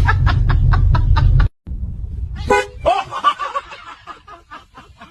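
A loud low rumble with even clicks about five a second cuts off abruptly, and a short car-horn toot sounds about two and a half seconds in. More short pitched calls and rapid even ticks follow, fading toward the end.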